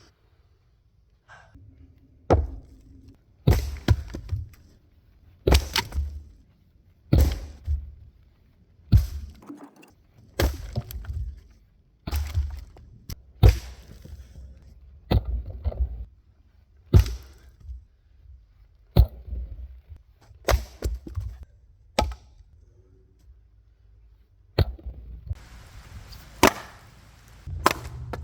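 Helko axe splitting firewood rounds, wood the uploader takes for eucalyptus: repeated chops, each a sharp crack, about one every one and a half to two seconds.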